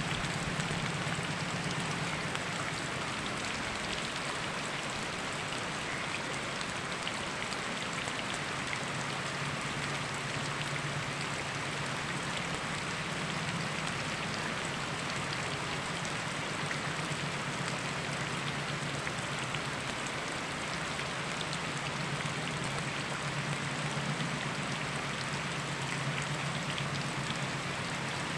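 Steady rain falling, with individual drops ticking on surfaces, over a low, even rush of flowing river water.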